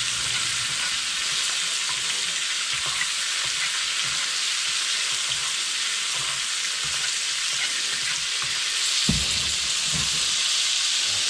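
Whole trout sizzling steadily in a cast iron skillet of olive oil, avocado oil, butter and lemon juice as the sauce is spooned over it. A single low knock sounds about nine seconds in.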